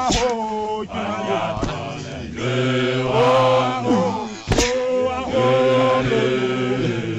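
A group of Basotho men singing a mokorotlo chant together, long held notes over a low steady drone. A sharp thud, a dancer's stamp, comes about four and a half seconds in, and another at the start.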